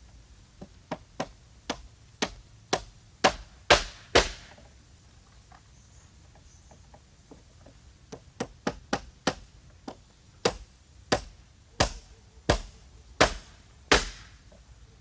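Two runs of sharp knocks or blows. The first, about nine strikes at roughly two a second, grows steadily louder. After a pause of about four seconds comes a second run of about twelve strikes that starts quick, slows to a little over one a second and also grows louder.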